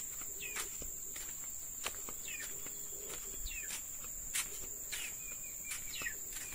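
Insects droning steadily at a high pitch, with short high falling chirps about once a second and scattered light clicks.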